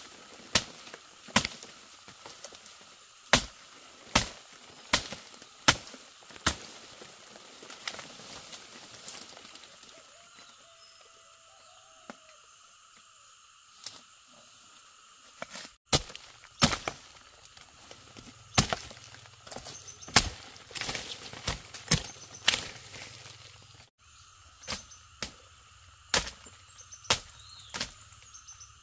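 Sharp cracks and snaps of plant stems and woody undergrowth being chopped or broken off during fern harvesting, irregular and about one a second, with a pause of a few seconds midway. A steady insect drone runs underneath.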